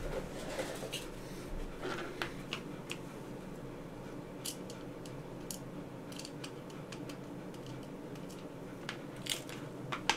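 Scattered small clicks and taps as loose OLFA scalpel blades and their clear plastic case are handled on a desk and nudged with a pencil, with a few quicker clicks near the end.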